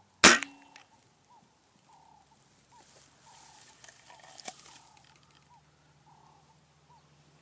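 Walther spring-powered air rifle firing once: a sharp crack about a quarter second in. A bird repeats a short call over and over in the background, with some rustling and a small click around the middle.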